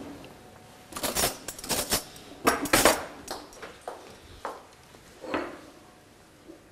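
Spoons and dishes clinking while food is plated: clusters of sharp, ringing clinks about one, two and three seconds in, then a few fainter knocks.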